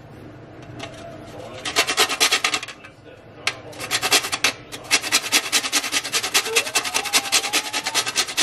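Whole nutmeg grated on a flat metal grater: quick rasping strokes, a short run about two seconds in, then steady strokes at about three a second from about three and a half seconds on.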